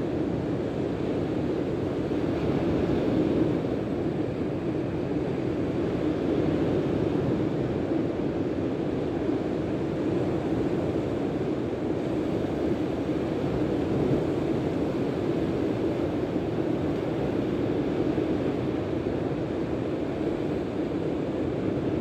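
Steady noise of surf and wind on the beach, the wind buffeting the microphone, swelling gently now and then.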